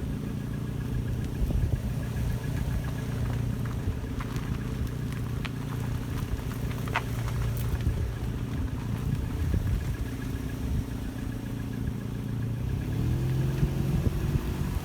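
Mazda 6 engine running steadily with a knock, the one the owner hears in every gear, both driving and at idle. Near the end the engine speed rises slightly.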